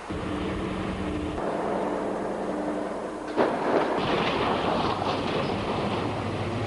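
A large mining haul truck's diesel engine running under load, with a sharp crack about three and a half seconds in, after which the sound grows louder and rougher as the truck runs over a four-wheel drive.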